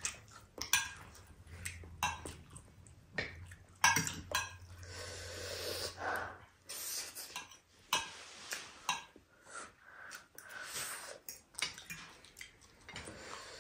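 Eating utensils clinking and scraping against plates and bowls in irregular short strikes during a meal, with a faint low hum that stops about halfway through.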